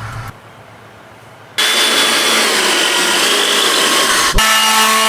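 Handheld electric power tool working the wood, a harsh grinding-cutting noise that starts about a second and a half in. Near the end the cutting noise stops and the motor runs free with a steady whine.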